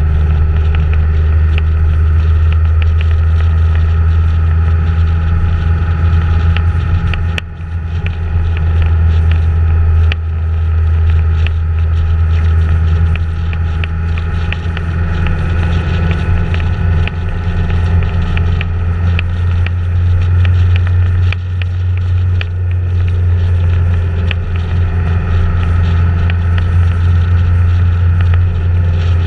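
Steady low drone of a vehicle driving at speed, with road and wind noise and light scattered ticks. There are brief dips about seven and ten seconds in.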